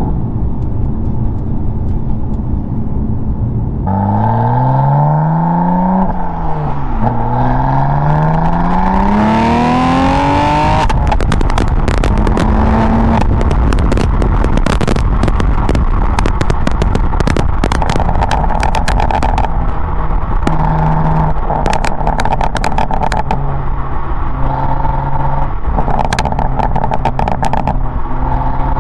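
BMW S55 twin-turbo inline-six of an M4 Competition, breathing through equal-length resonated midpipes, stock catted downpipes and Eventuri intakes. It runs steadily, then about four seconds in its note rises sharply under acceleration, dips at a gearshift, and climbs again through the next gear. After that it settles to steadier running with many sharp crackles and clicks over the engine note.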